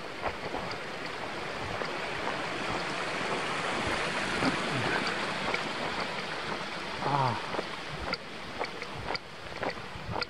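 Footsteps crunching in snow at a walking pace, with the rush of a small open creek swelling through the middle and easing off again. A short squeak that falls in pitch comes about seven seconds in.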